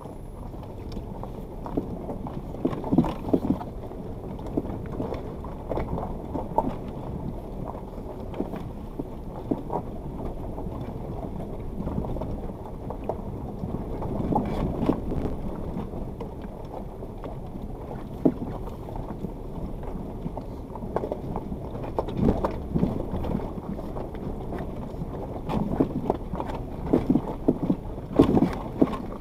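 Suzuki Jimny crawling slowly over a rocky riverbed, heard through a dashcam: a steady low rumble of engine and tyres, broken by frequent knocks and clatters as stones crunch under the wheels and the body jolts. The clatter comes in clusters, busiest near the end.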